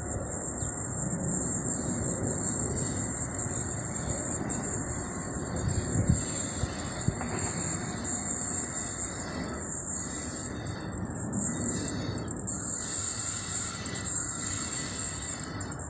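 Electric freight locomotive hauling an intermodal train slowly over the tracks: a steady rumble of wheels on rail, with a sharp knock about six seconds in.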